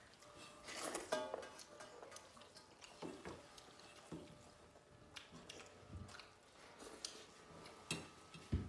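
Quiet mealtime sounds: chewing and fingers mixing rice on stainless steel plates, with scattered light clicks. There is a short ringing sound about a second in and a soft thump near the end.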